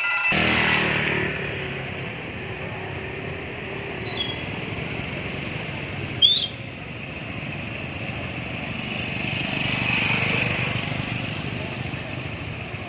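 Scooters and motorbikes running and moving off across a wet road in a steady traffic noise, one swelling louder as it passes near ten seconds in. A short, sharp, high chirp sounds about six seconds in.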